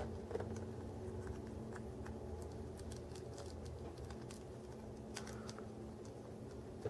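Faint, scattered clicks and taps of a Nendoroid figure's small plastic parts being handled and fitted, over a low steady room hum.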